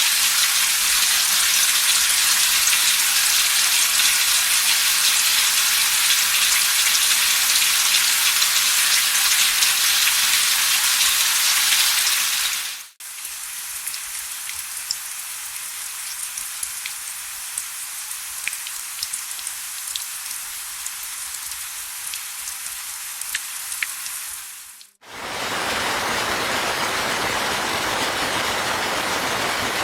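Rain recordings in sequence: a dense, steady downpour that fades out after about thirteen seconds, then lighter rain with single drops ticking, which fades out about twenty-five seconds in and gives way to another steady rain.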